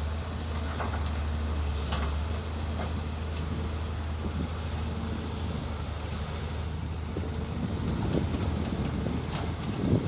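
Excavator's diesel engine running steadily, with a few scattered knocks; the rumble grows louder near the end, ending in a sharper knock.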